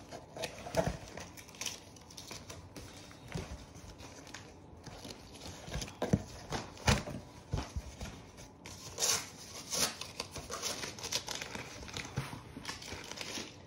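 Sticky tape being pulled off the roll, torn and pressed onto cardboard, with scattered taps and rustles of handling.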